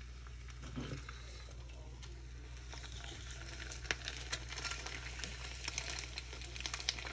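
Oil sizzling in a frying pan, with scattered crackles and pops that grow more frequent after a couple of seconds, over a steady low hum.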